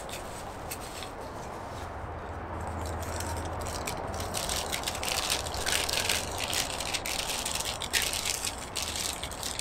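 Tissue and paper wrapping crinkling and rustling as it is unfolded by hand, with many small crackles, getting busier and louder from about four seconds in.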